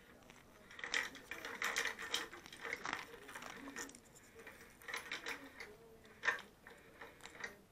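Plastic ball-track cat toy clattering and rattling as a cat paws at it and the ball knocks around its ring, in two spells of quick clicks with a lull between.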